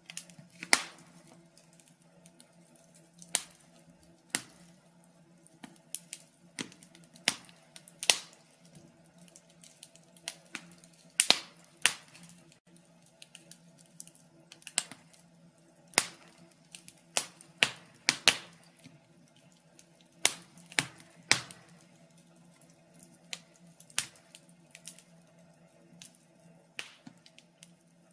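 Wood fire crackling in a fireplace: irregular sharp pops and snaps, a few every couple of seconds, over a faint steady low hum.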